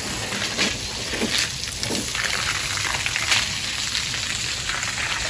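Water from a garden hose thrown as a jet and splashing onto a wet concrete floor: a steady splashing with small irregular spatters.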